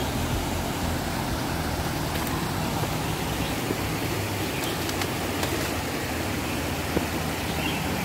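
Stream water rushing steadily over rocks and small cascades.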